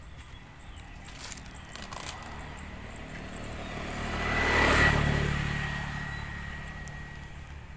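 A road vehicle passing by on the adjacent main road: its noise builds gradually to a peak about five seconds in, then fades away.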